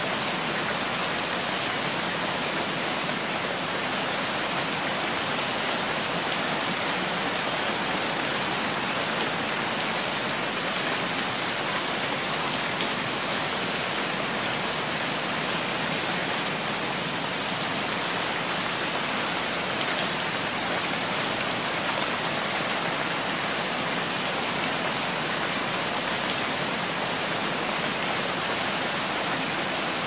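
Steady rain falling on a tile roof and dripping from its eaves, an even hiss that stays at the same level throughout.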